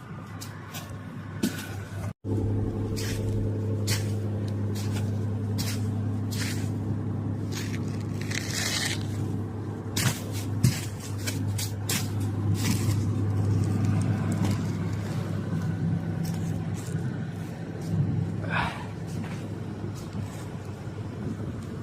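A vehicle's engine running steadily while driving, a low even hum, with scattered knocks and rattles from the ride. The engine sound comes in after a brief gap about two seconds in.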